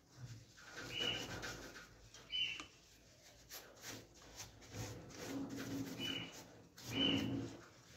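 Gloved hand scrubbing the greasy sheet-metal inside of a gas stove with steel wool, in uneven rubbing strokes with a few short high squeaks.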